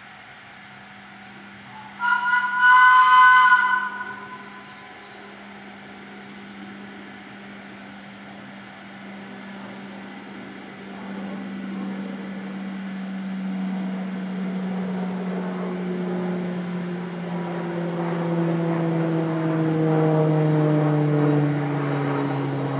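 A locomotive's chime whistle gives one blast of about a second and a half. Then a locomotive engine running draws nearer and grows louder, its pitch slowly falling.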